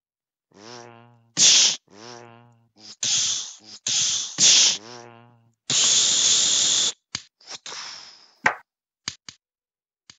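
Lightsaber sound effects made with the mouth: short low hums for the blade swings alternating with sharp hissed bursts for the clashes, in a quick irregular series. One longer hiss lasts over a second in the middle, and a few quick clicks come near the end.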